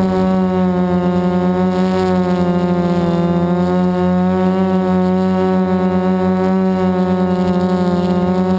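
Multirotor drone's motors and APC 4.7x10 propellers in flight, a steady buzz whose pitch wavers slightly as the throttle changes.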